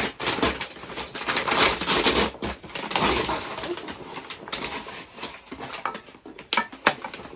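Takeaway food packaging rustling and crinkling in irregular bursts as the meal is unpacked, busiest in the first few seconds, with a few sharp clicks near the end.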